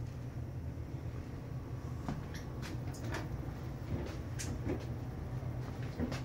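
A steady low hum with a scattering of light knocks and clicks from about two seconds in.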